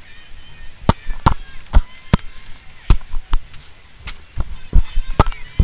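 Irregular sharp knocks and thumps, about a dozen in a few seconds: a handheld camera bumping and rubbing against rope and clothing while its holder climbs a rope cargo net.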